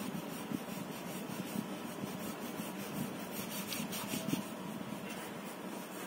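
Pencil strokes scratching lightly on paper while sketching, over a steady background hum.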